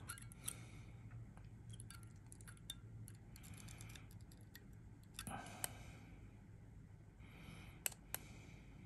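Faint, scattered small metallic clicks and taps of tweezers against the coils and brass deck of a rebuildable tank atomizer as the coils are pinched together, with two sharper clicks near the end.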